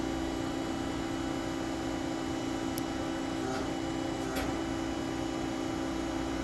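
LVD Strippit S-1212 CNC turret punch powered up and running but not yet punching: a steady machine hum with a few faint ticks.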